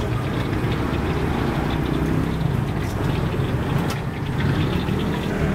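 Motorcycle engines running steadily in street traffic, with two faint clicks about three and four seconds in.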